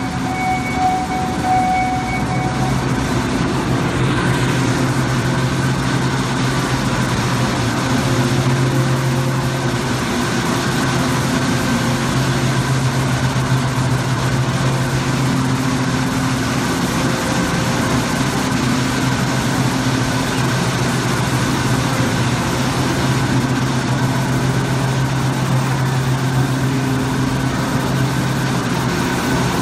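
Steady machinery drone of an aluminium checker plate production line, with a strong low hum and fainter steady tones above it. Two high-pitched tones drop out about two seconds in.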